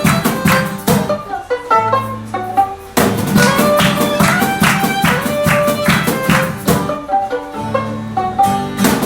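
A live string band playing an instrumental tune: rhythmic strummed chords under a plucked melody, with two brief phrase breaks where low bass notes are held.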